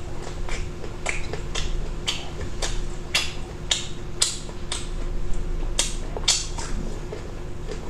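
A person chewing food with the mouth open: sharp, wet smacking clicks about twice a second, over a steady low hum.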